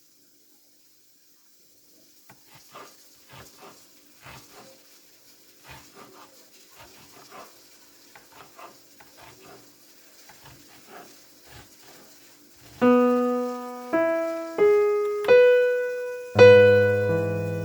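Piano music: five single notes about a second apart, then a full chord with bass, coming in about thirteen seconds in after a stretch of faint scattered taps and clicks.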